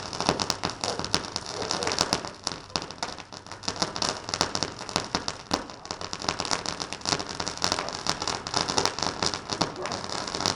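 Consumer birthday-cake firework crackling: a dense, continuous spatter of many small pops over a steady hiss.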